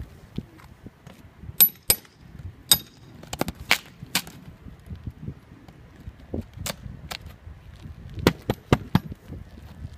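Hand tools, a hammer and a flat pry bar, working on asphalt shingles and roof decking: sharp, irregular knocks and metal taps. The first few, in the opening seconds, have a brief metallic ring.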